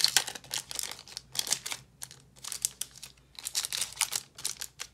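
Foil trading card pack wrapper crinkling and tearing as it is peeled open by hand, in irregular crackly bursts with short pauses.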